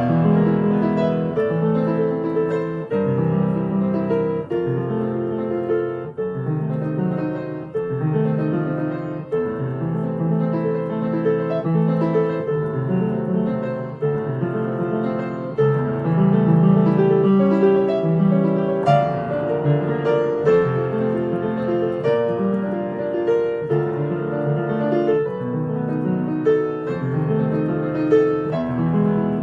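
Piano music: a steady run of struck notes over low chords.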